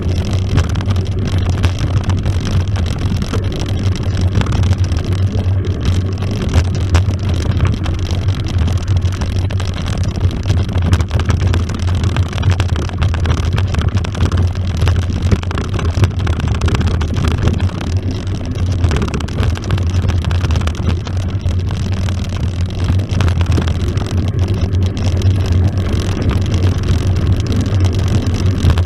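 Steady rumble and crackle of a mountain bike rolling over a dirt and gravel track, picked up by a camera mounted on the front fork, with the rattle of the bike and wind on the microphone mixed in. The noise is loud and continuous, with a deep low rumble and constant small crackles and knocks.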